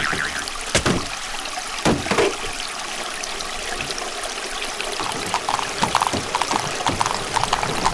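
Water trickling and flowing steadily, like a small stream, with two sharp knocks about one and two seconds in and light repeated tapping near the end.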